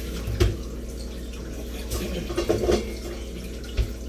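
A cutting board and other kitchen things being handled: a sharp knock about half a second in, a cluster of clatters around the middle, and another knock near the end, over a steady low hum.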